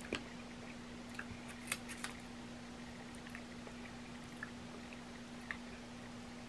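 Kitchen scissors cutting a boiled crab leg shell: a few faint, scattered snips and cracks, the clearest under two seconds in, over a steady low hum.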